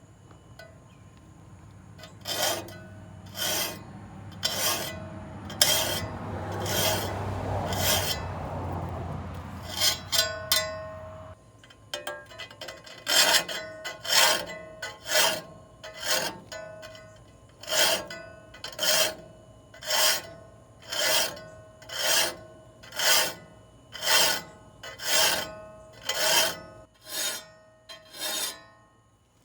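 Metal filing strokes on the teeth of a clearing-saw (brush-cutter) blade, repeated at about one stroke a second. A low steady hum runs under the first strokes and stops about eleven seconds in.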